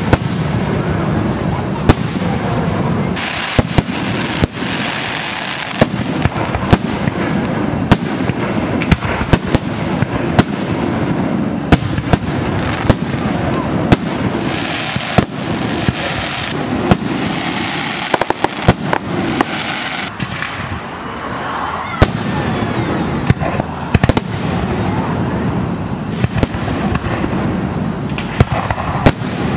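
Aerial fireworks display: shells bursting in sharp, loud bangs every second or so, some in quick clusters, over a continuous din.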